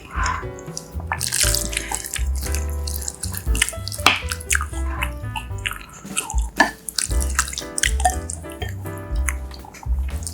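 Background music with held notes over a pulsing bass, with many short, wet-sounding clicks and drips over it.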